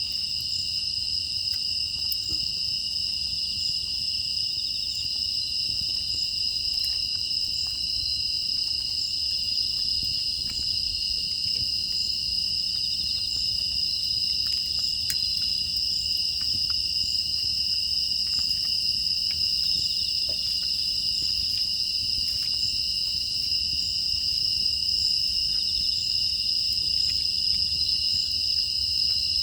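A chorus of crickets and other grass insects, chirring steadily at a high pitch, with a few faint scattered ticks under it.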